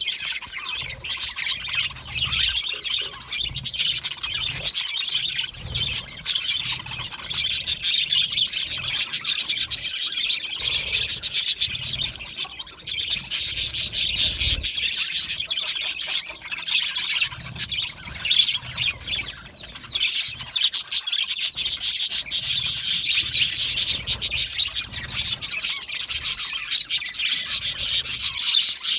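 A flock of budgerigars chattering and chirping continuously, many birds' short warbling calls and chirps overlapping without a break.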